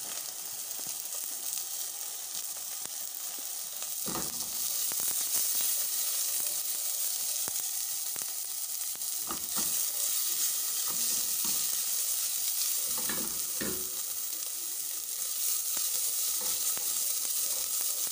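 Chopped onion sizzling in hot oil with cumin seeds in a metal pot as it is sautéed, a steady frying hiss. A wooden spatula stirs it, with a few scrapes against the pot.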